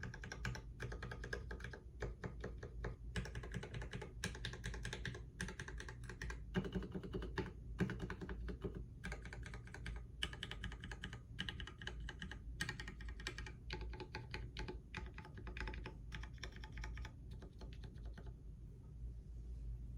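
Typing on an ID87 v2 mechanical keyboard with Durock V2 stabilizers (the left shift's stabilizer is stock): a fast, irregular run of keystroke clacks that stops about two seconds before the end.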